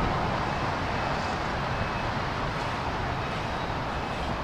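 Steady outdoor background rumble and hiss, even throughout, with no distinct knocks or crashes.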